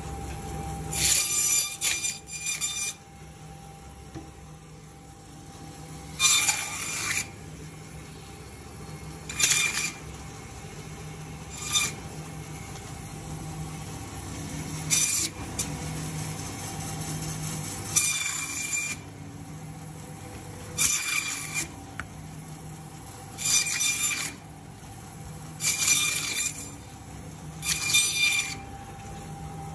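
Bandsaw cutting through a whole fish. The saw motor runs with a steady hum, broken about ten times, every two to three seconds, by a loud rasping screech as the blade passes through the fish for each slice.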